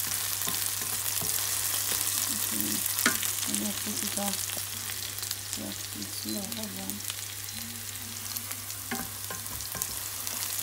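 Sliced onions sizzling in hot oil in a nonstick frying pan as they are stirred with a wooden spatula, frying to brown before the spice mix goes in. A couple of sharp clicks stand out, one about three seconds in and one near nine seconds.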